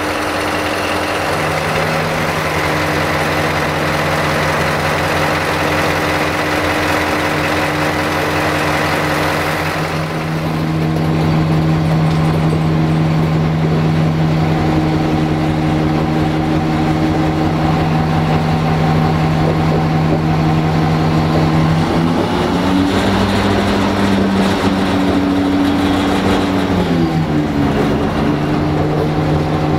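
LDH1360 diesel-hydraulic shunting locomotive's diesel engine running steadily. About two-thirds of the way through, the engine speeds up for several seconds, then settles back to its lower note.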